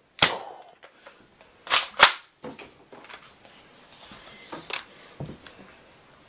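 Sharp plastic clacks from handling a spring-powered Nerf blaster: a single snap, then a quick pair about a second and a half in, followed by a few fainter clicks.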